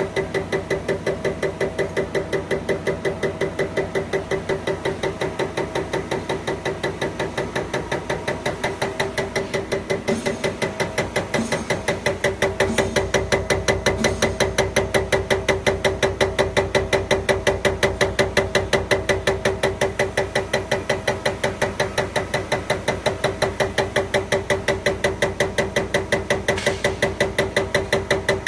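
CAT 387-9433 HEUI diesel injector firing on a CAT900 injector test bench: a rapid, even clicking, about five times a second, over a steady hum from the running bench. The sound gets a little louder about twelve seconds in.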